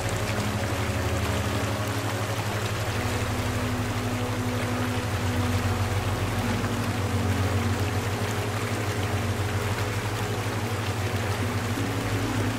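Steady rushing water, like a running stream, with a low sustained hum of a few held tones underneath whose pitches shift a few times.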